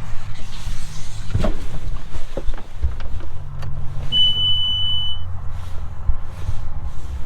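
Some knocks and clicks in the cab, then a single steady electronic beep about a second long from the Bobcat S630 skid steer's instrument panel as the key is switched on, before the preheat countdown. A low steady rumble runs underneath.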